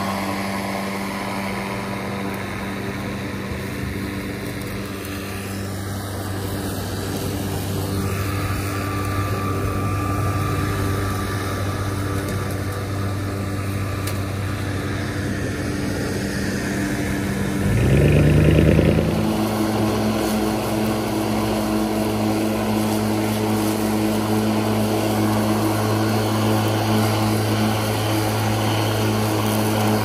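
Mowrator S1 Pro battery-electric remote-control mower running over a lawn, a steady motor hum and whine. About two-thirds of the way through, the sound briefly gets louder with a rising pitch, then settles into a steady hum again.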